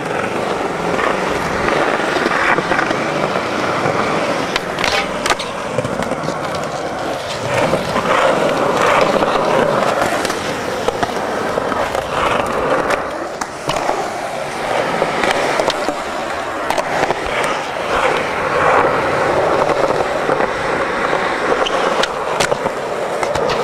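Skateboard wheels rolling on concrete, a continuous rough rumble, with sharp clacks of the board hitting the ground several times.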